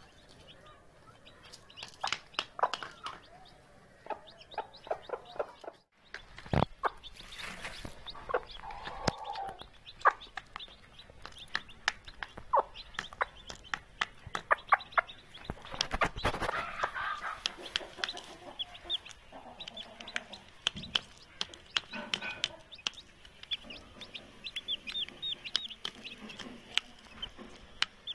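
Mother hen clucking while her chicks peck at grain on a ceramic plate, with many quick taps of beaks on the plate and chicks peeping.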